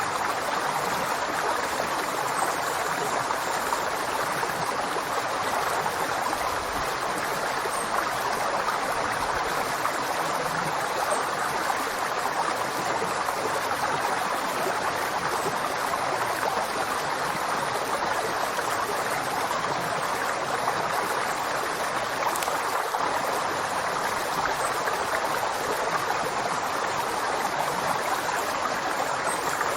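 A river flowing, a steady, even rush of water.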